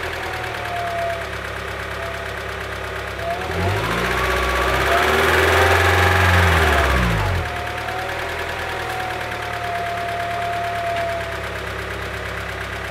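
1998 Honda Prelude's 2.2-litre DOHC VTEC four-cylinder (H22A4) idling semi-warm, revved once for a few seconds a few seconds in and then falling back to a steady idle. The valvetrain noise it is making is heard just after a valve adjustment, on an engine with 236K miles.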